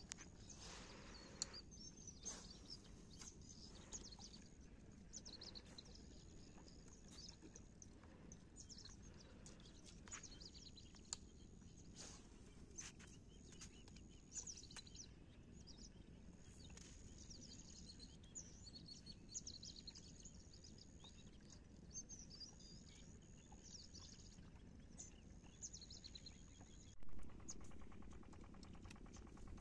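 Birds chirping and singing faintly and repeatedly over low steady background noise, with a few light clicks and one brief louder bump near the end.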